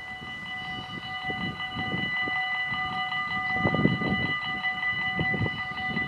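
Electronic warning bells of a Dutch level crossing start up and ring continuously in a fast, even clang, several bells sounding together as the crossing activates for an approaching train. Irregular low rumbles underneath grow louder.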